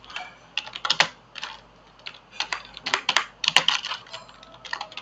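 Typing on a computer keyboard: irregular runs of quick keystroke clicks with short pauses between words.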